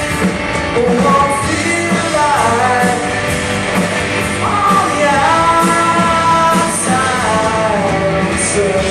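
Live rock band playing: a singer's voice in sung lines, some sliding in pitch and some held, over the band's guitar and drums with a steady beat.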